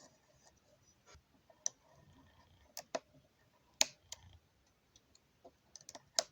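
A few scattered sharp clicks as a cutter blade pries apart the plastic case of a Ledger Nano S, its snap clips popping loose one by one; the loudest clicks come near the middle and just before the end.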